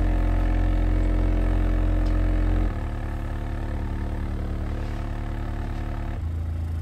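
PowerBass 3XL-810D 8-inch subwoofer playing free air, out of any box: long, steady, very deep bass notes from a test song. The note changes abruptly about two and a half seconds in, to a quieter one, and again near the end.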